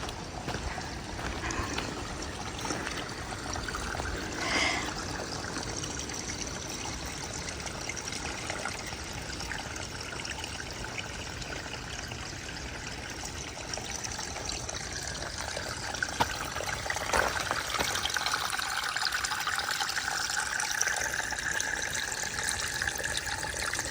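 A stream trickling and flowing steadily, its sound growing a little louder and brighter in the second half.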